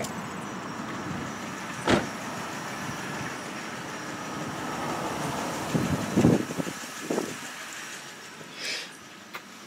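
Steady hum of a motor vehicle, with one sharp click about two seconds in and a few dull thuds around six seconds in. The hum fades near the end.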